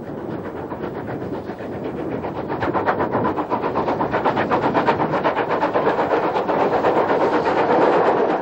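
Southern Railway Lord Nelson class four-cylinder 4-6-0 steam locomotive No. 850 working under steam, a rapid run of exhaust beats growing louder as it approaches.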